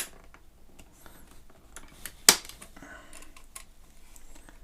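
Sharp clicks and light knocks of a digital measuring tape being handled and set against a bamboo shelf, with one loud click a little over two seconds in.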